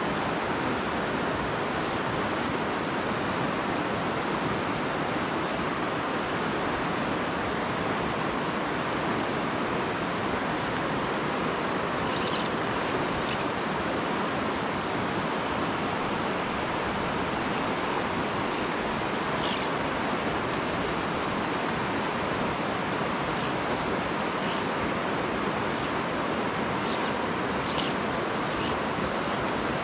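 Shallow, rocky mountain stream rushing steadily over stones through a riffle: an even, unbroken sound of running water.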